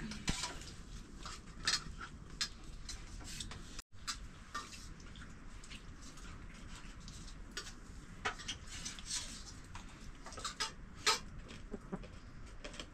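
Irregular light clicks and taps, several a second, sharp and short.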